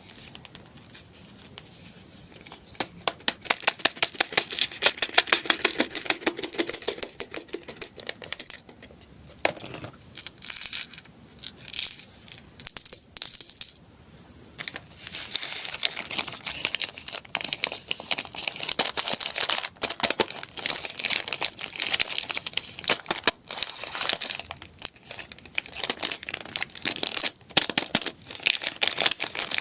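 Candy wrappers crinkling and tearing as sweets are unwrapped by hand: fast, dense crackling, with a few sharp clicks and a short lull about halfway through.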